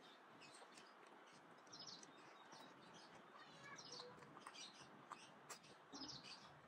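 Near silence with faint, short high chirps repeating about once a second, and a few faint clicks.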